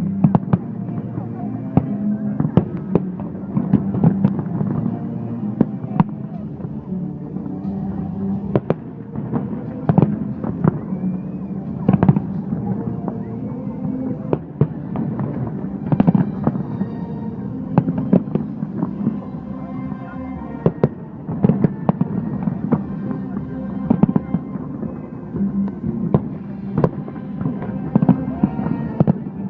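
Fireworks bursting overhead: a continual run of sharp bangs and cracks at irregular intervals, over music.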